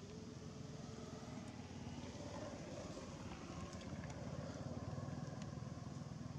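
A motor engine running steadily at a low, even hum, with a few faint clicks over it.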